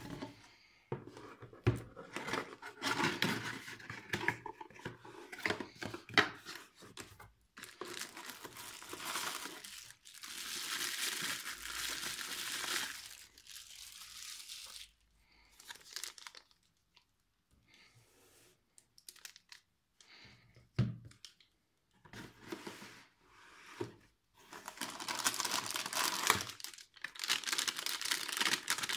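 Hands rustling and crinkling plastic bags and bubble-wrap packaging while unboxing, in bursts with quieter pauses, and one sharp knock about three-quarters of the way through.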